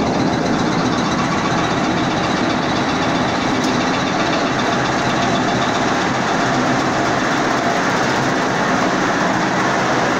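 Dried-apricot size-grading machine running: a steady, loud mechanical din from its conveyor and sorting screens carrying the fruit.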